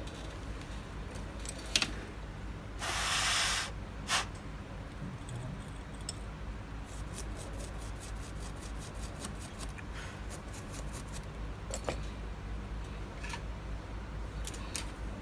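Light clicks and taps as an iPhone 7 Plus logic board and small tools are handled on a workbench, with a quick run of small clicks in the middle. A steady low hum runs underneath, and a one-second burst of hiss comes about three seconds in.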